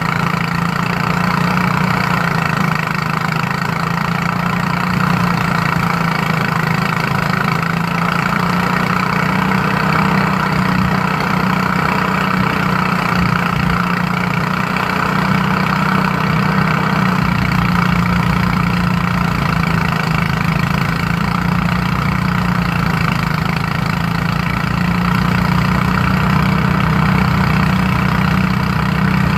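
Engine-driven rice threshing machine running steadily while rice sheaves are fed into its threshing drum, a continuous low engine hum with a noisy whirr on top.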